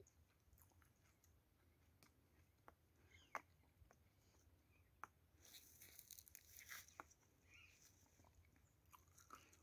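Near silence, with a few faint scattered clicks and a brief soft rustle about halfway through.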